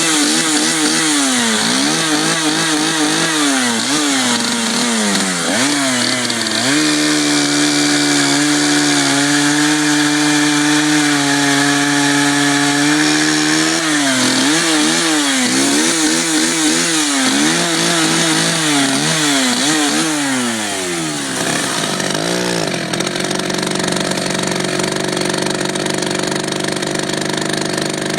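Jonsered 70 cc two-stroke chainsaw engine revved up and down in quick throttle blips, then held at full throttle for several seconds, then blipped again. Near the end it drops to a steady idle, with one short rev along the way.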